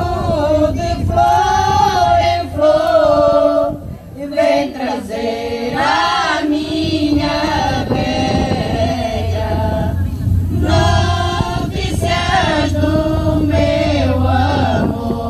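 Women's choir singing unaccompanied Alentejo folk song (cante alentejano) in slow, harmonised parts, with a short break between phrases about four seconds in.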